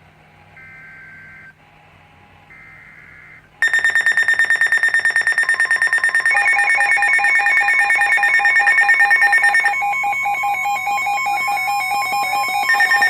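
Emergency Alert System warning on NOAA Weather Radio: two short warbling data bursts of the SAME header, then about three and a half seconds in a loud electronic alarm starts. It is a rapidly pulsing high beep, joined a few seconds later by further steady and pulsing tones. The alarm announces an incoming severe thunderstorm warning.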